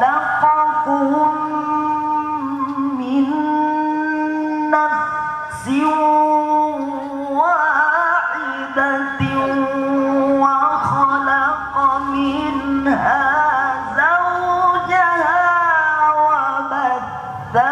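A man's voice reciting the Qur'an in melodic tilawah style into a microphone, holding long, drawn-out notes decorated with rapid wavering trills, with a few short breaks between phrases.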